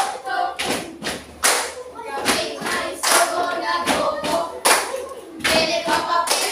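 A group of children singing or chanting together, keeping time with hand claps about once a second.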